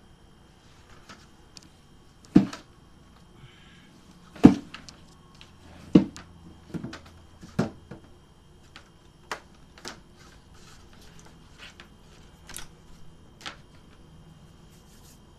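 A series of sharp knocks and clunks from things being handled and set down by hand, four loud ones in the first half and lighter clicks and taps after.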